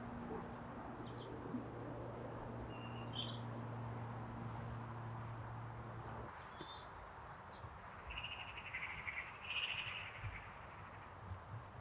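Small birds chirping in short calls, most often about two-thirds of the way through, over a quiet hiss. A low steady hum underneath stops suddenly about halfway through.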